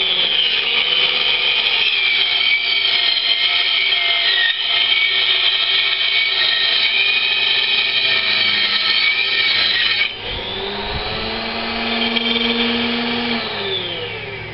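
Dremel 4-inch hobby table saw running with a high motor whine while ripping a strip off cedar shake siding, the pitch wavering and dipping under the load of the cut. About ten seconds in the whine gets quieter and climbs back up as the blade runs free, then falls in pitch near the end as the motor spins down.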